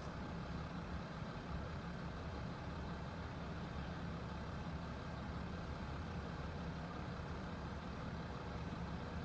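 A vehicle engine idling: a steady low hum that holds the same pitch throughout.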